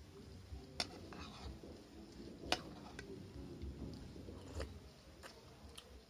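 Eating at a table: a metal spoon clinking against a bowl and plate about six times, the loudest clink about two and a half seconds in, with faint chewing between.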